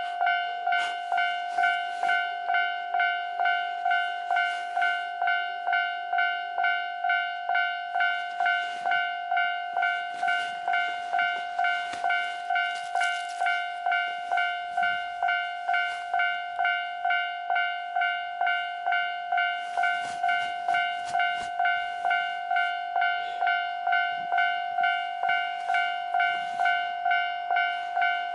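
Japanese level-crossing warning bell ringing steadily at about one and a half strokes a second, while a train passes over the crossing with a clatter of wheel clicks in the middle of the ringing.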